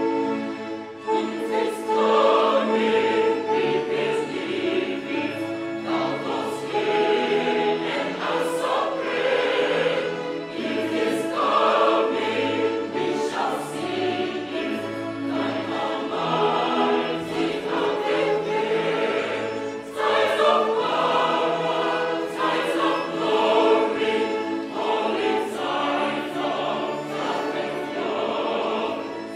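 A choir singing a hymn in several parts, with violins accompanying.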